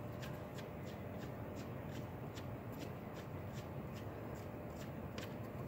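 Faint rubbing and rustling of a hand gripping and twisting a plastic distributor to work it loose for removal by hand, over a low steady hum. A faint, even ticking runs about three times a second.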